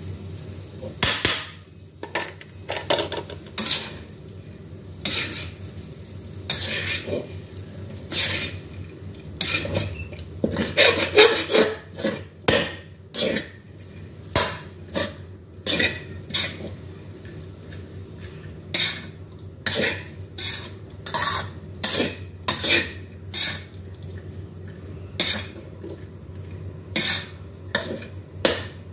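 Spatula scraping and knocking against a large metal wok as fried rice is stir-fried, in irregular strokes about one or two a second, over a steady low hum.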